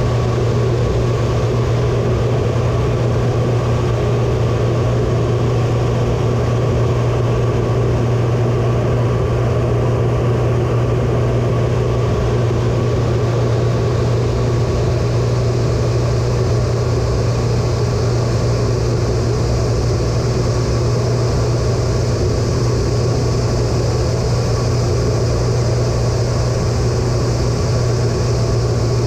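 Loud, steady cockpit noise of a US Air Force A-10 Thunderbolt II with its turbofan engines running: a deep, unchanging hum under an even hiss.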